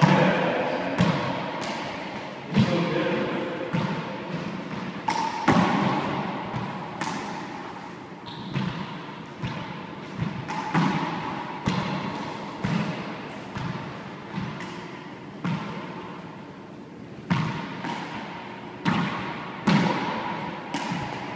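Handball play in an enclosed court: a small rubber ball struck by a gloved hand and smacking off the walls and floor. The impacts are sharp and irregularly spaced, about one every second or two, and each echoes off the hard walls.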